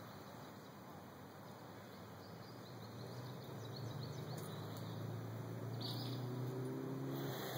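Outdoor background hiss with a few faint bird chirps. A low, steady droning hum builds from about three seconds in.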